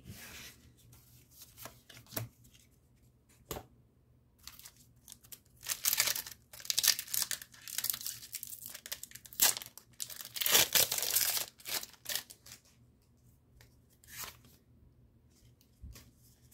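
Foil wrapper of a Pokémon TCG Lost Origin booster pack being torn open and crinkled, in two louder stretches near the middle, with softer rustling and small handling clicks around them.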